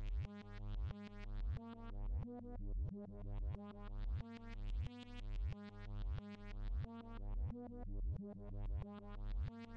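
Electronic background music led by synthesizer, with a steady pulsing bass beat about one and a half times a second.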